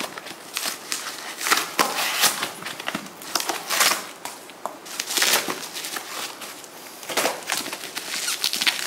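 Cardboard shipping box being torn and pulled open, then bubble-wrap packaging crinkling as it is handled: irregular rustling and crackling.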